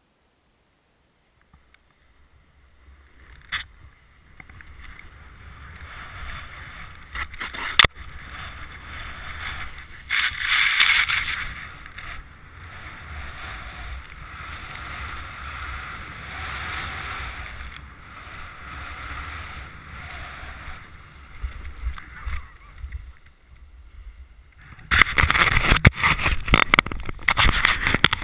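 Snowboard sliding through deep powder snow: a steady hiss that builds after a couple of seconds, with a louder swoosh about ten seconds in. Near the end a loud burst of crunching and knocking up close.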